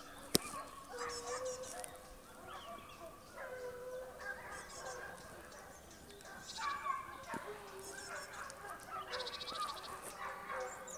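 Porcelaine hounds and a beagle baying on wild boar, several voices overlapping in long, drawn-out cries throughout. A single sharp click about half a second in.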